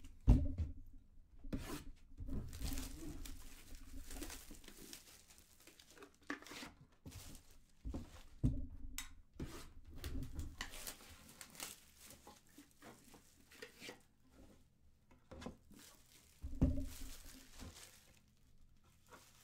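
Trading-card box being torn open: wrapper tearing and crinkling in scattered rustles, with a few knocks from the box being handled, the sharpest just after the start.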